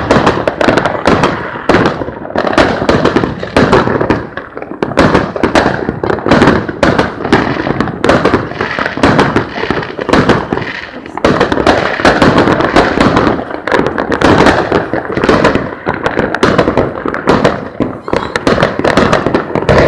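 Fireworks going off in a dense barrage, many sharp bangs a second without a break, loud enough to peak near the recording's limit.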